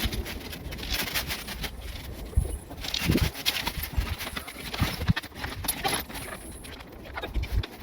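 Irregular handling noise: scattered clicks, clinks and light knocks with rustling, and a few dull thumps.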